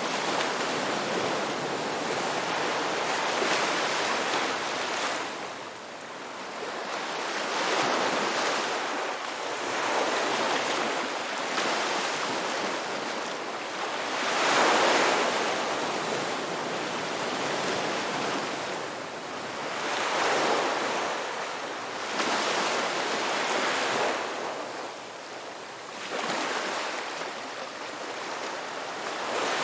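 Ocean waves breaking on a beach, each surge swelling and falling away every few seconds.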